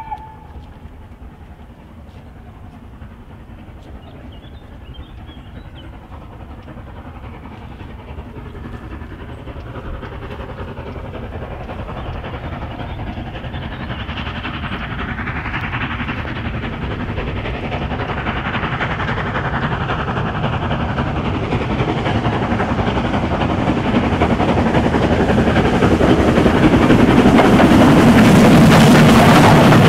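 Southern Railway Schools class 4-4-0 steam locomotive No. 925 approaching under steam with its train, the sound growing steadily louder until it passes close by near the end.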